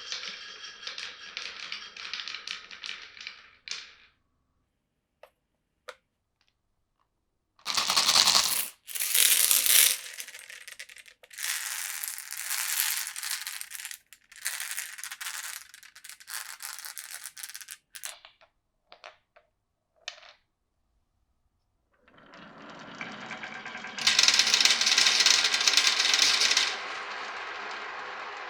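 Glass marbles rolling and clattering down a wooden marble run. The sound comes in several runs of a few seconds, broken by short silences, with sharp clicks and knocks as marbles drop onto and strike the track pieces. Near the end a longer roll builds up, gets loud for a couple of seconds, then carries on more steadily.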